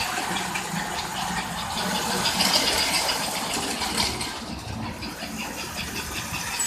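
American Flyer S-gauge toy train running on its track: a steady motor and gear whir with rapid wheel clicks over the rail joints. It grows quieter about four seconds in as the train moves away.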